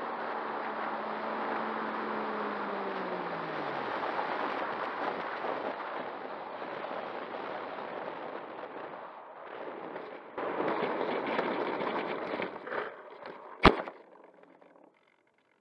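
Onboard sound of an E-flite Air Tractor 1.5m's electric brushless motor winding down, its whine falling in pitch as the throttle is cut, under steady airflow noise. About ten seconds in, a louder rough rumble of the wheels on the ground starts, with a few knocks. Near the end comes one sharp, very loud knock as the tail-heavy plane's wheels dig in and it noses over.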